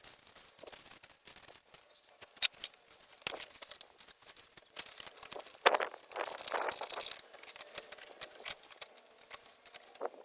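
Irregular scraping, rustling and knocking from cleanup work on a building site, with short high chirps now and then.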